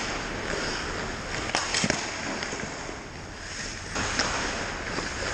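Ice hockey play: a steady hiss of skates scraping the ice, with a few sharp clacks of sticks and puck, about two seconds in and again near the end.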